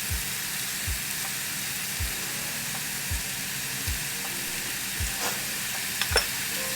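Minced pork sizzling steadily as it is stir-fried in oil in a hot pan, with a few sharp clinks of the spatula against the pan near the end. A low thump sounds about once a second throughout.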